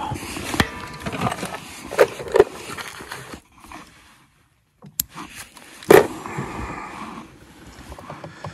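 Close-up handling noises of a hook being worked free of a landing net and a largemouth bass: rain jacket rustling, scraping, and several sharp clicks and snaps, with a brief quiet gap about midway.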